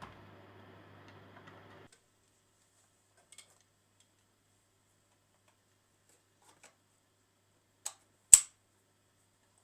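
A few sharp plastic clicks from the Puppyoo cordless handheld vacuum being handled: two faint ones, then two close together near the end, the second the loudest. A faint steady hum runs for the first two seconds and then cuts off.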